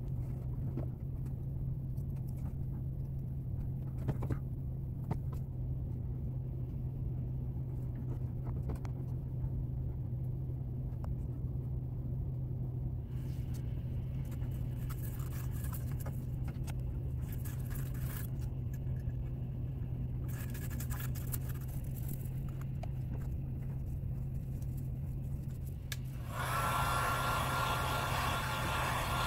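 Toothbrush scrubbing a brass clock plate in soapy water: faint scratching over a steady low hum. About 26 seconds in, a hot-air blower switches on and runs loudly, drying the washed plate.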